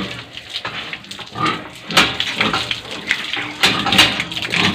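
A domestic pig grunting in short, irregular bursts, loudest about two seconds in and near the end, while being hosed down with water.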